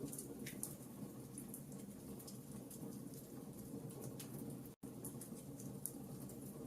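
Campfire burning, with frequent small crackles and pops over a steady low rumble of the flames. Near the middle the sound cuts out for an instant.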